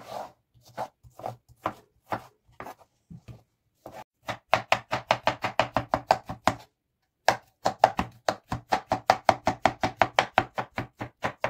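Kitchen knife chopping peeled cucumber on a wooden cutting board: a few slow, spaced cuts, then quick, even chopping of about five strokes a second, broken by a short pause midway.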